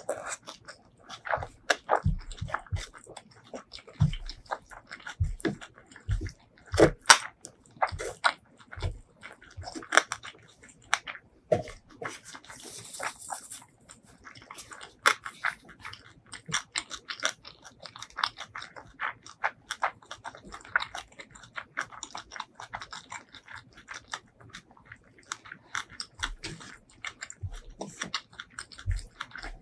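Close-miked chewing of a meal of spicy shrimp curry and rice: steady, irregular wet mouth clicks and smacks, with occasional crunchy bites.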